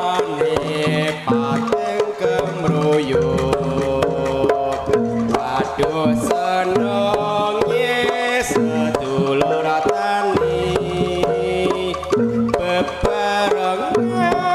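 Live Javanese jaranan music: a driving beat on kendang hand drums under a busy melodic line, with notes changing several times a second, played loud through a sound system.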